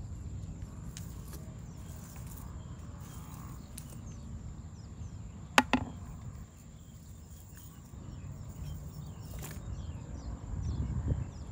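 Wind rumbling on the microphone, with two sharp knocks in quick succession about halfway through.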